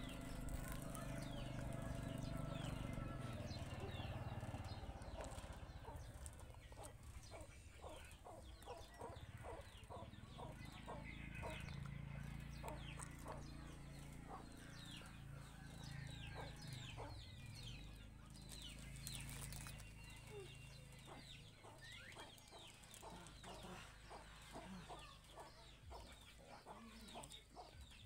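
Chickens clucking in the background in runs of short repeated clucks, with short high chirps scattered throughout. A low rumble fills the first few seconds.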